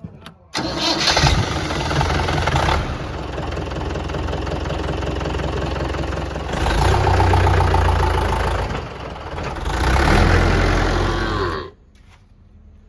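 Diesel engine of heavy earthmoving or farm machinery running under load. It starts abruptly about half a second in, swells louder three times as it is worked, and cuts off suddenly near the end.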